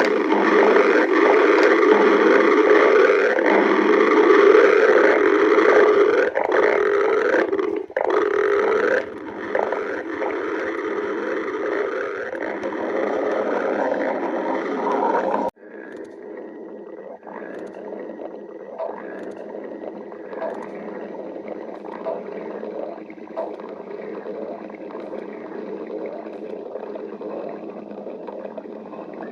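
Stomach growling: long, loud, rumbling gurgles that run on without a break. About halfway through the growling drops suddenly to a quieter, continuing rumble.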